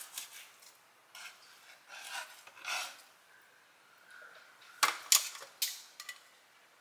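Knife slicing through a cooked steak on a cutting board, with metal tongs clicking and scraping against the board. A cluster of sharp knocks about five seconds in is the loudest part.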